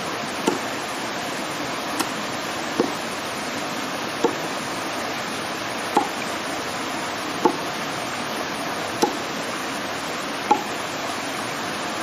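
A large knife chopping with single knocks about every second and a half, eight in all, over the steady rush of a shallow stream.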